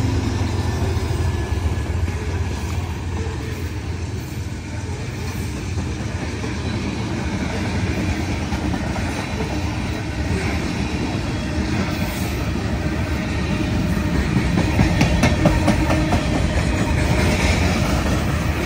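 Freight train passing close by: a diesel locomotive's engine rumble in the first couple of seconds, then covered hopper cars rolling past with a steady rumble and clicks of wheels over the rail joints, growing louder a few seconds before the end.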